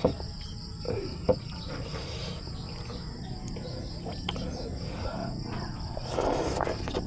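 Boiled chicken being pulled apart by hand, with a few sharp wet clicks in the first second and a half, then a bite into the chicken near the end, over a steady high buzz of insects.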